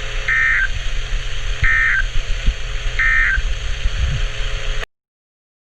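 NOAA Weather Radio EAS end-of-message data signal: three short bursts of screechy digital tones, about 1.4 s apart, over radio static and hum, marking the end of the warning broadcast. The audio cuts off abruptly near the end.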